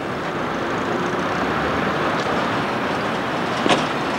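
Steady street traffic noise, an even rush of passing cars, with a single sharp click near the end.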